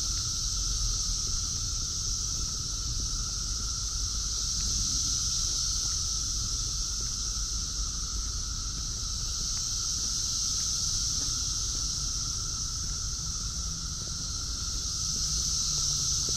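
Brood X periodical cicadas chorusing: a steady, unbroken high-pitched drone, with a lower steady hum beneath it.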